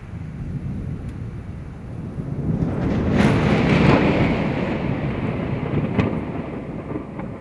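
A roll of thunder that comes in suddenly, swells to its loudest about three to four seconds in, then rumbles away slowly.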